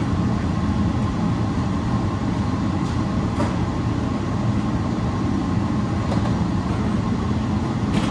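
Steady low rumbling machine-like noise with a few faint clicks.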